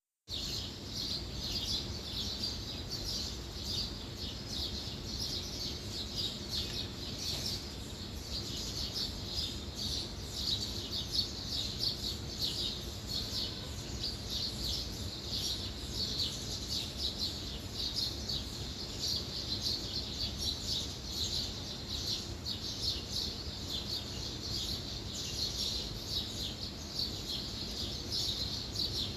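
Birds chirping in a continuous stream of short high chirps, over a steady low rumble.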